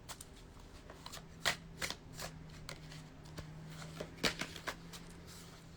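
A tarot deck being handled and shuffled: soft, irregular card flicks and taps, a few sharper than the rest.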